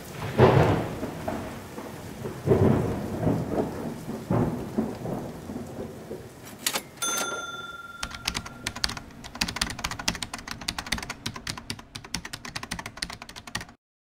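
Intro sound effects for a film-leader countdown: three deep booms with rumble over the first five seconds, a short beep about seven seconds in, then a fast clatter of film-projector clicks that cuts off suddenly just before the end.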